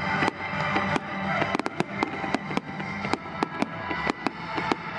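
Fireworks going off in a rapid, uneven string of sharp bangs, about three or four a second, with music playing underneath.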